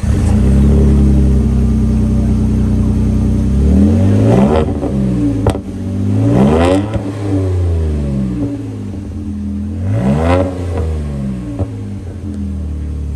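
2022 Nissan Frontier's 3.8-litre V6 heard through a NISMO stainless cat-back exhaust with a slash-cut tip, idling steadily and then revved three times, about 4, 7 and 10 seconds in, each rev rising and falling back. A little crackle comes from the exhaust as the revs drop.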